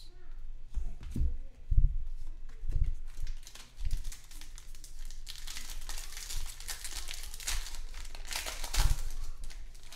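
Plastic wrapper of a trading card pack crinkling and tearing as the pack is opened, a dense rustle through the second half. A few dull knocks of the pack and cards being handled come in the first half.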